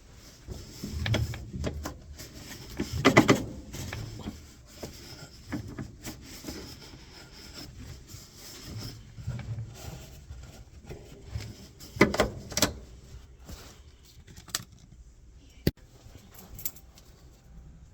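Hand work on a washing machine: irregular clinks, knocks and rattles of tools and metal parts being handled. The loudest clattering comes about three seconds in and again about twelve seconds in, with a single sharp click near the end.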